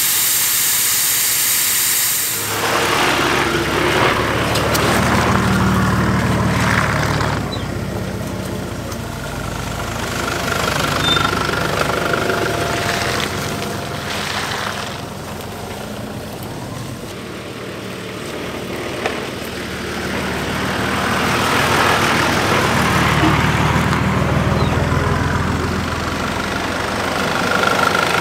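Air hissing out of a 4WD tyre through a valve deflator, cutting off after about two seconds. Then a Nissan Patrol's engine running at low speed as it crawls along a rough bush track, swelling twice with the throttle.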